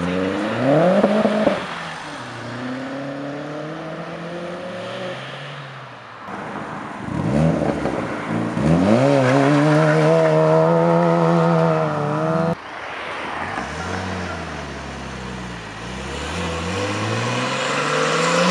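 Modified cars' engines revving and accelerating away, the pitch climbing and dropping with each push of the throttle and change of gear. A sustained high rev is the loudest part in the middle, and it breaks off suddenly; the sound cuts abruptly twice.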